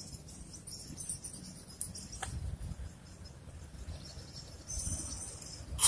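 Insects chirring, faint and high-pitched, with a sharp click near the end.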